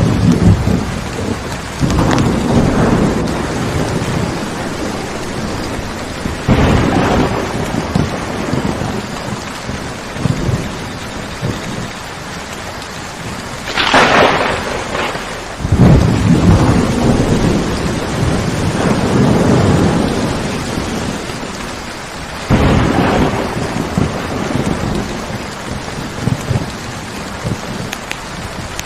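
Steady heavy rain with thunder rumbling through it, about five rolls swelling and fading, the sharpest crack about halfway through.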